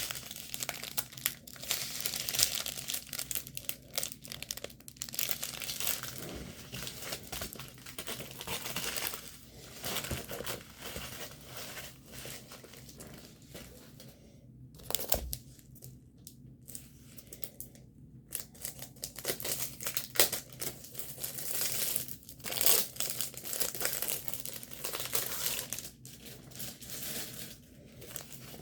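Plastic packaging crinkling as it is handled and opened, in irregular bursts with a few short pauses.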